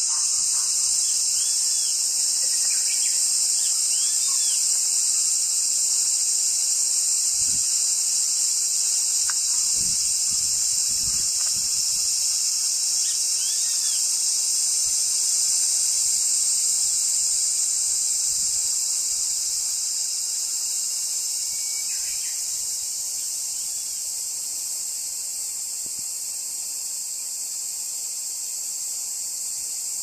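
Steady, high-pitched drone of insects in a summer forest, with a few faint rising-and-falling whistled calls of a grey-faced buzzard scattered through it.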